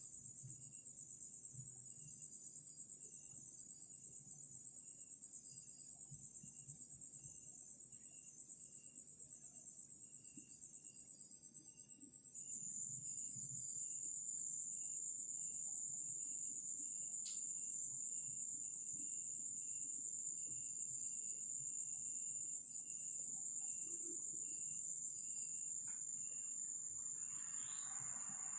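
Night insects, crickets, trilling: one steady high-pitched trill, with a second, lower insect chirp repeating at an even pace. A soft rustle comes in near the end.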